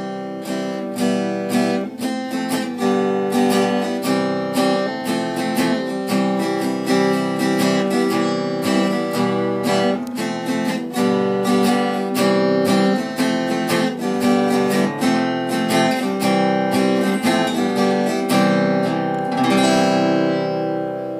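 Background music: acoustic guitar playing a steady run of plucked notes, fading out near the end.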